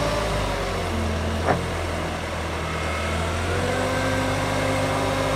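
Bobcat compact track loader's diesel engine running steadily as the machine drives forward, with a thin whine above the engine hum. A brief sharp sound comes about a second and a half in.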